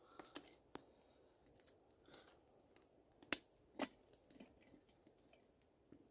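Scattered sharp knocks and clicks as sticks of firewood and a stainless steel coffee percolator are set into a small campfire; the sharpest click comes a little over three seconds in.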